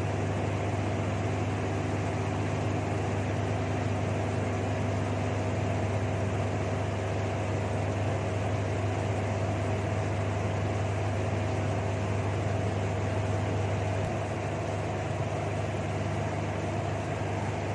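Steady machine hum, low and even, with a faint higher whine over it that drops away about fourteen seconds in.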